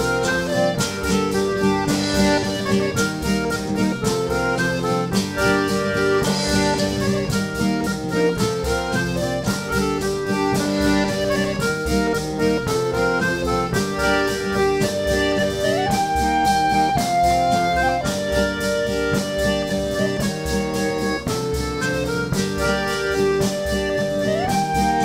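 Instrumental music from a small group of musicians: held chords and a melody line over a steady beat.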